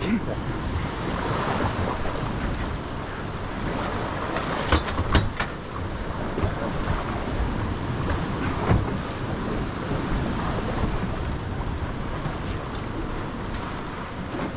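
Wind buffeting the microphone over choppy sea water, with a few short sharp clicks or knocks about five seconds in and one more a few seconds later.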